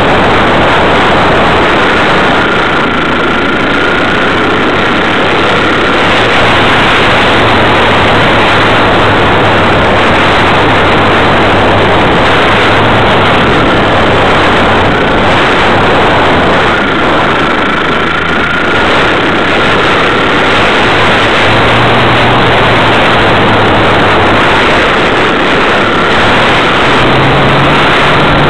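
Motor and propeller of a Wilga RC model plane heard through its onboard camera: a loud, steady rushing noise with a faint wavering whine. Near the end a lower tone begins to rise in pitch.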